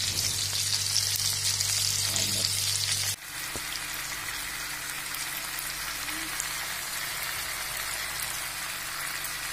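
Marinated chicken legs sizzling as they fry uncovered in hot oil in a pan, a steady hiss with fine crackling spatter. About three seconds in the frying drops a little quieter.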